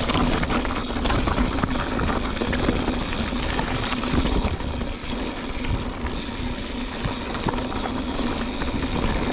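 Mountain bike riding down rough, loose rocky single track: wind rushing over the microphone, with tyres crunching over rock and the bike rattling in many small knocks, under a steady faint hum.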